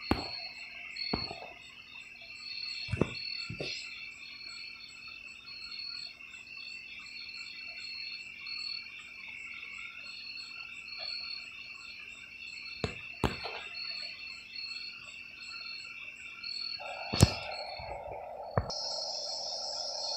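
Crickets chirping in a steady, evenly pulsing chorus, with a few sharp clicks, the loudest near the end. Near the end a steady hiss and a higher steady sound come in.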